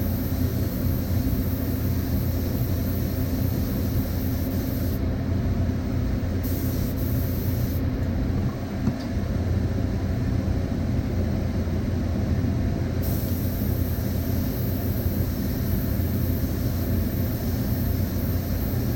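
Steady motor hum of an air compressor with the high hiss of a spray gun applying Cerakote; the hiss stops twice for a few seconds and everything cuts off abruptly at the end.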